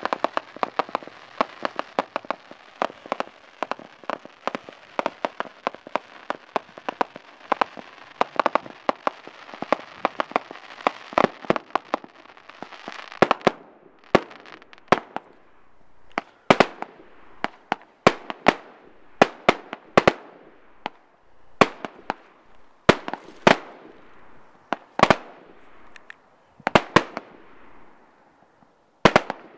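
Aerial fireworks going off: a dense rapid volley of bangs over a steady hiss for roughly the first half, then thinning to separate loud reports about once or twice a second.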